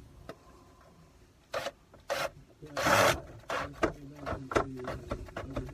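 Hand tool tightening the check valve on a sump pump's PVC discharge riser: a few rubbing scrapes starting about a second and a half in, then a run of quick clicks and rattles.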